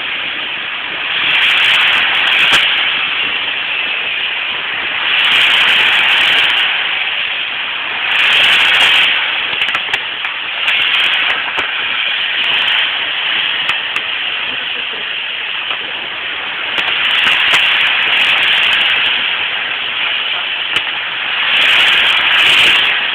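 Fireworks burning with a continuous loud hiss, swelling and fading every few seconds, with scattered sharp crackles.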